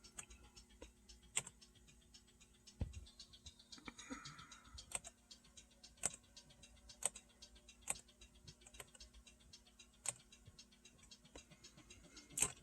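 Faint, irregularly spaced clicks and ticks, about one a second, over quiet room tone, with a soft low thump about three seconds in.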